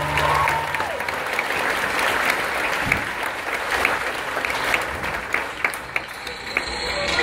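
Theatre audience applauding at the end of a dance number, with the last notes of the music dying away in the first half-second. The clapping dips a little about six seconds in, then swells again near the end.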